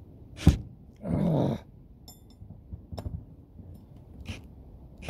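Work on a seized screw in a brass mushroom vent with a cordless drill-driver: a sharp click, then a short strained grunt of effort about a second in, followed by a few light clicks of the bit and tool.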